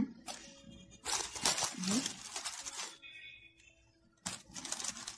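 Aluminium foil crinkling and rustling under hands, in two bursts: one from about a second in and one near the end.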